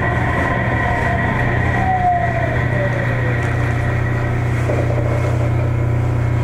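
Sendai Subway 1000 series train running, heard from inside the car: a steady low rumble and hum from the wheels and Mitsubishi IGBT-VVVF traction motors. A fainter whine falls in pitch about two seconds in.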